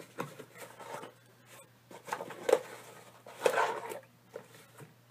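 Rustling and scraping of cardboard packing as items are dug out of a cardboard mailing box by hand, in short irregular bouts, with two louder scrapes about two and three and a half seconds in.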